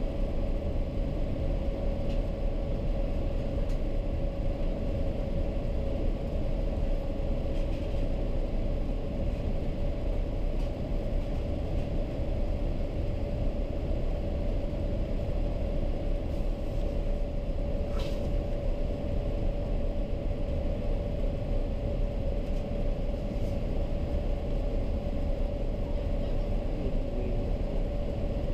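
Steady cabin noise inside a Boeing 787-8 airliner in flight on descent: a low rumble of airflow and engines with a constant hum tone. A single sharp click a little over halfway through.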